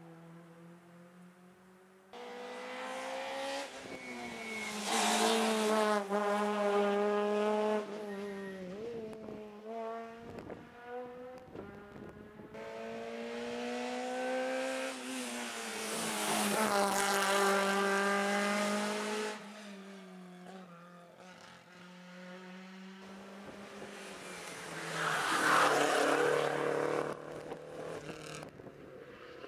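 Rally car engine revving hard through the gears on a winding tarmac stage, rising and falling in pitch in three loud waves as the car works through the bends, the last and loudest as it comes up to the hairpin near the end.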